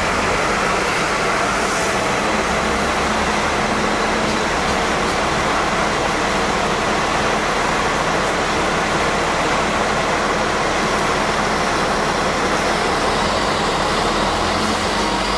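Steady ride noise aboard a Hong Kong double-deck electric tram running on its street rails, mixed with road traffic and a double-deck bus close ahead. A low engine rumble grows stronger near the end.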